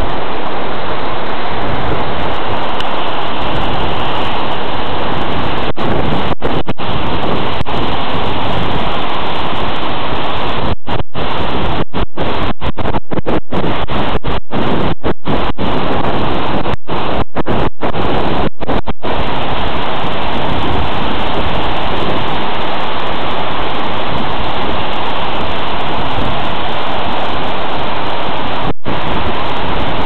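Cikaso waterfall and the river below it: a loud, steady rushing roar of falling and running water. The sound cuts out for split-second gaps many times, mostly in the middle stretch.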